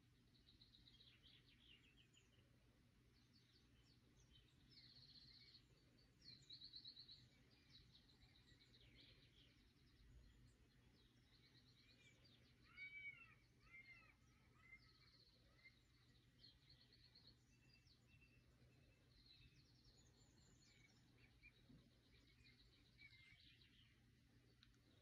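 Faint birds chirping and trilling, many short calls and rapid trills, with a louder run of rising-and-falling notes about halfway through. A steady low hum lies underneath.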